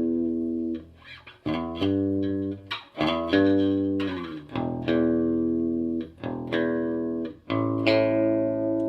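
Electric bass guitar, a Fender Squier P-bass fitted with a Hipshot A-style brass bridge, played through an amp: a series of plucked notes, each ringing on for a second or two before the next. It is being played to test the tone and sustain of the new brass bridge.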